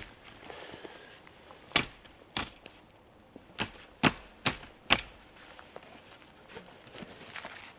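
Hatchet chopping into a log: about six sharp strikes, two spaced out and then four in quick succession about half a second apart.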